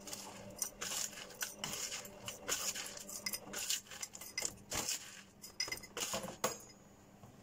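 Metal teaspoon scooping and scraping through dry, gritty stony potting mix in a plastic tray, with irregular clinks and rattles of small stones against the spoon. The clinking stops about six and a half seconds in.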